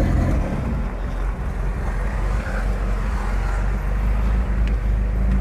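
Chevrolet Opala's engine running at low revs, a steady low drone; the engine note drops back about half a second in.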